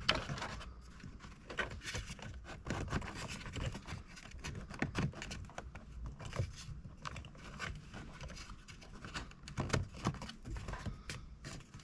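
Irregular light clicks and short scrapes of the headlight-switch area's trim parts being handled and fitted by hand.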